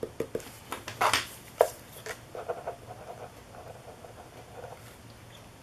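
Paper handling with a few light taps and rustles, then a pen writing in short strokes on a paper sticky note.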